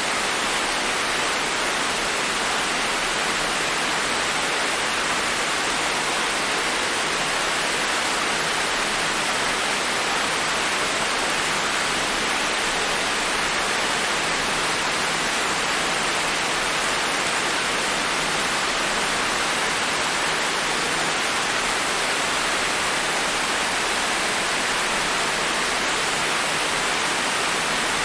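Steady rain falling, an even hiss with no single drops or gusts standing out.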